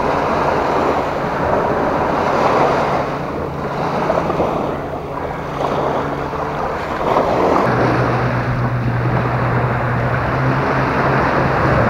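Small waves washing against beach rocks and sand, with wind buffeting the microphone. A low steady hum runs underneath and grows louder about eight seconds in.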